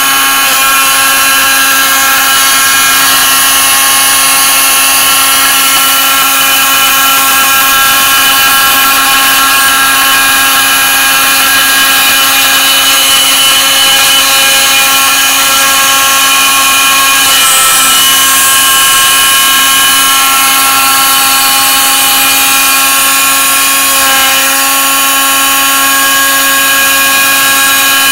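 Proxxon MF 70 CNC mini mill running its spindle, a steady high whine made of several tones, as a small end mill cuts a shim out of thin drinks-can aluminium. The tone wobbles briefly about two-thirds of the way in.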